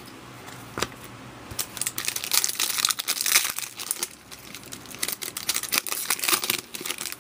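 Foil wrapper of an SP Authentic hockey card pack crinkling and tearing under the hands. A couple of sharp clicks in the first second and a half, then dense crinkling for about five seconds.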